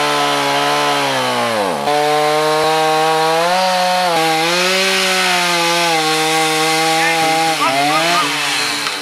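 Two-stroke chainsaw running at high throttle while cutting into the base of a standing tree trunk. The engine note sags sharply under load about two seconds in, recovers, wavers again near the end, then cuts off suddenly.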